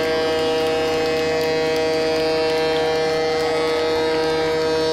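Ship's horn sounding one long, steady blast of several tones held together as a chord.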